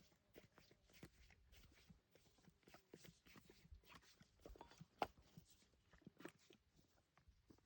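Horses moving about, very faint: scattered soft clicks and rustles, with one sharper click about five seconds in.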